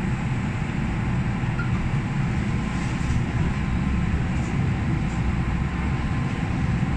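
Metro-Cammell M-Train electric metro train heard from inside a car as it pulls away from a station platform: a steady low rumble of traction motors and wheels on the rails.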